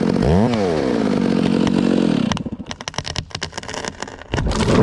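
Chainsaw engine running, its pitch dipping briefly and coming back up about half a second in, then stopping a little after two seconds. Scattered clicks follow, with a low thump near the end.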